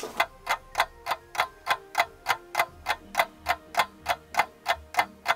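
Ticking clock sound effect, nearly four even ticks a second, over faint held musical notes.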